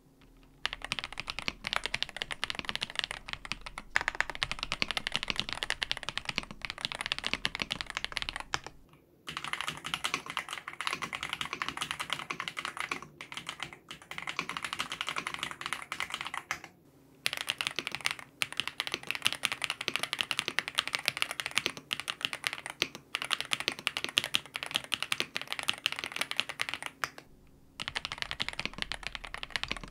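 Fast continuous typing on a tape-modded Ajazz AK820 Pro mechanical keyboard with stock Ajazz Flying Fish linear switches and PBT Cherry-profile keycaps. It is a dense run of keystrokes with a few short pauses, about 9, 17 and 27 seconds in.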